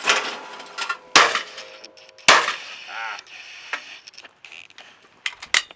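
Shotgun fired at clay targets: three sharp bangs a little over a second apart, the later two the loudest, each followed by a short echo. Some smaller clicks come near the end.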